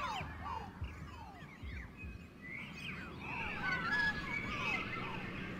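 Quiet passage of a music track made of many overlapping short chirping pitch glides, joined by a few held high tones in the second half.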